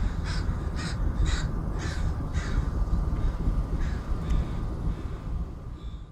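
Crow cawing: a quick run of about six caws in the first two and a half seconds, then a fainter caw or two near four seconds, over a steady low rumble.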